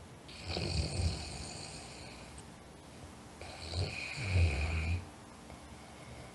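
A person snoring in sleep: two snores about three seconds apart, each a low rumble with a hissing edge, with quieter breathing between.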